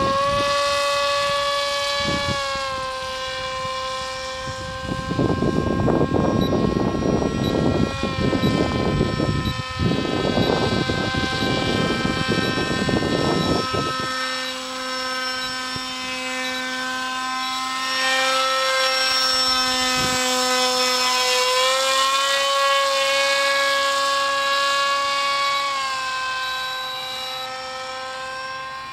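Engine and propeller of a powered paraglider droning overhead, a steady pitched hum whose pitch shifts slightly a few times as the throttle changes. A rough rumble of wind on the microphone joins in from about five seconds in until about fourteen seconds.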